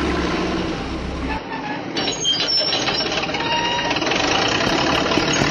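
Sound effect of a heavy construction machine's engine running, with a rapid knocking clatter.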